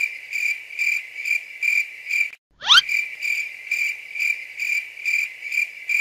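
Cricket-chirping sound effect used as an awkward-silence gag: a steady high chirp repeating evenly about twice a second. Near the middle it cuts out briefly, a quick rising glide sounds, and the chirping resumes.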